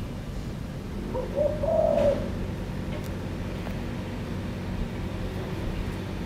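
A spotted dove cooing: one short, low coo phrase lasting about a second, beginning about a second in, over a steady low background hum.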